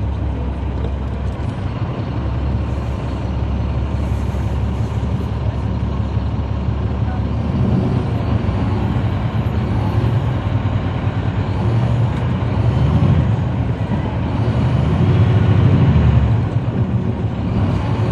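Caterpillar C13 diesel engine of a 2009 NABI 40-SFW transit bus running under way, heard inside the cabin from the rear seats as a steady deep drone. It grows louder twice in the second half as the engine pulls harder.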